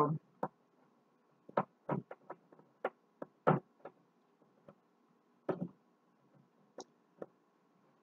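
Irregular light clicks and knocks of a hard clear-plastic refrigerator crisper drawer being handled and shifted, a dozen or so spread unevenly, the loudest about three and a half seconds in.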